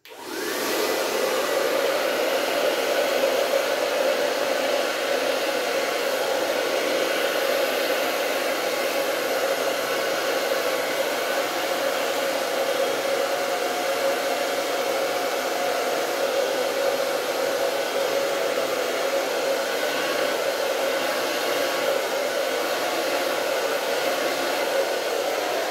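Handheld hair dryer switching on and then running steadily at one speed, blowing air onto wet acrylic paint.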